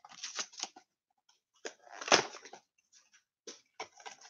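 Packaging crinkling and tearing as a mystery mini box is opened by hand: a run of short, irregular crackles, with a louder cluster about two seconds in.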